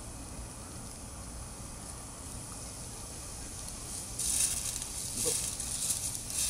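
Low steady outdoor background, then from about four seconds in dry fallen leaves crackling and rustling in irregular bursts as a cat turns round in the leaf litter after defecating, to sniff the spot before burying it.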